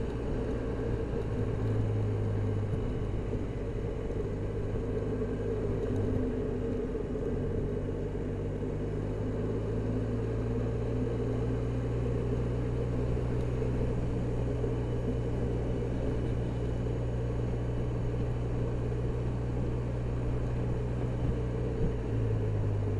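Touring scooter's engine running at a steady cruise with road and wind noise, its note shifting a few times as speed changes.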